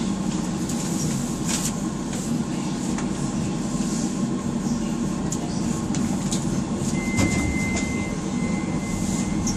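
Docklands Light Railway train heard from inside the carriage: a steady running hum and rumble as it slows along the platform and comes to a halt, with scattered clicks and a thin, steady high tone starting about seven seconds in.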